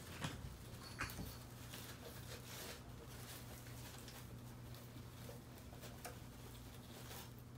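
Faint rustling and crinkling of a cloth reptile shipping bag and packing being untied and handled in a cardboard box, with a couple of sharper ticks near the start and about a second in, over a low steady hum.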